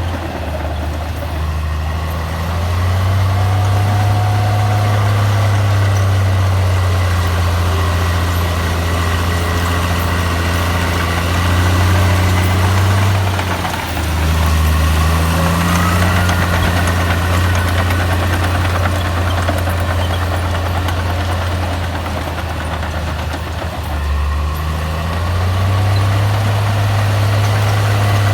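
Heavy diesel engine of earthmoving machinery running continuously, its low drone shifting in pitch and level a few times as the load changes, dipping briefly about halfway through and again near the end.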